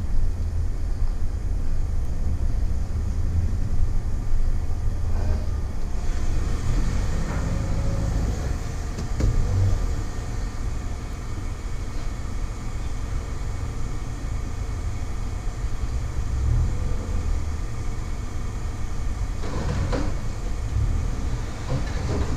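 A vehicle engine's low, steady rumble, with a few short knocks about five seconds in and near the end.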